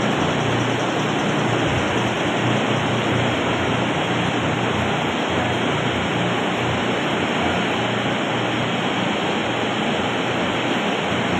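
Steady machinery noise in a rotary milking parlour: a constant hiss over a low hum, with no separate knocks or calls standing out.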